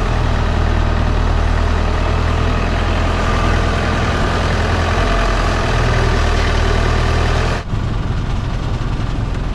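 Thai longtail boat's engine running steadily under way. About three-quarters of the way through it drops out for an instant, then carries on a little softer.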